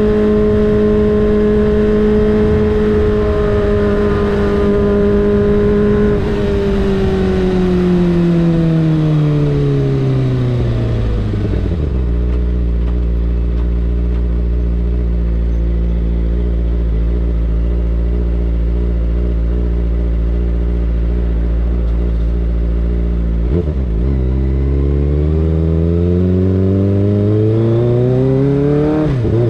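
Kawasaki Ninja ZX-25R's 249 cc inline-four engine heard from the rider's seat: it holds a steady note for about six seconds, falls in pitch as it slows, settles to a steady low note for about ten seconds, then rises again as it accelerates, with a brief dip near the end at a gear change.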